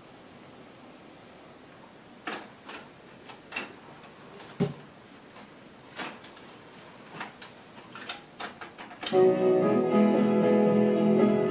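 Pioneer CT-M6R six-cassette changer mechanism clicking and clunking in random play, about a dozen sharp clicks with one heavier clunk, as the display switches to another cassette; about nine seconds in, music from the tape starts playing, loud and sudden.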